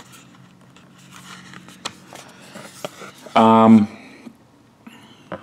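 Hands handling a card booklet coin package: faint rustling and light taps of the card being moved and flipped. About three and a half seconds in a person utters a short spoken sound, the loudest thing here.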